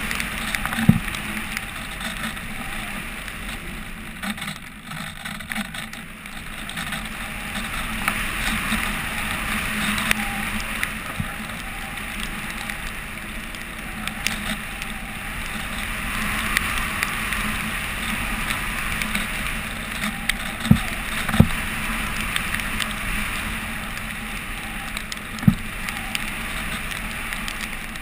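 Wind rushing over a GoPro mounted on a flying RC glider, a steady rush that swells and eases, with a low hum underneath. A few sharp taps cut through, one about a second in and three in the last third.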